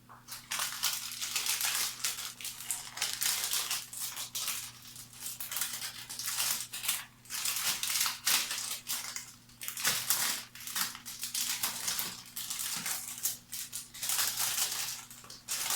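Packaging crinkling and rustling in irregular bursts as it is handled, over a faint steady low hum.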